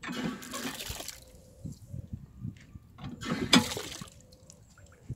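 Water running from the spout of a green metal drinking-water post onto the drain grate beneath it, in two short spurts: one at the start and another about three seconds in.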